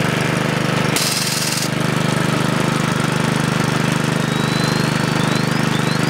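Small gasoline engine of a gold dredge running steadily at speed, with a fast, even pulse of firing strokes. A brief hiss comes about a second in.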